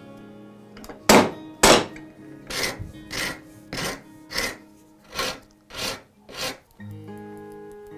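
Hand tool worked on wood: two loud sharp whacks, then about seven softer strokes at roughly one and a half a second, with background music at the start and end.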